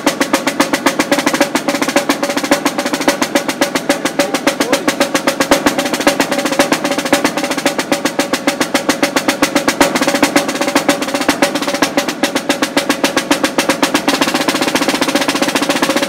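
Marching snare drum played in a fast, unbroken solo: a rapid, even stream of stick strokes with a ringing drum tone under them.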